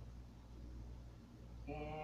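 Quiet kitchen room tone with a low steady hum; a woman starts speaking near the end.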